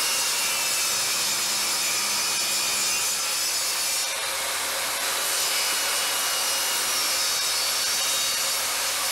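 Table saw running and cutting a small wooden block fed along the fence with push blocks; a steady loud saw noise with a high whine, dipping briefly about four seconds in.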